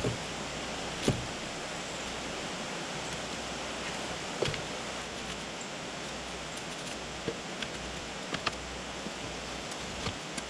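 Steady rush of a river's white-water rapids, with scattered short knocks as split hardwood firewood pieces are set into a steel fire ring, a few of them close together in the second half.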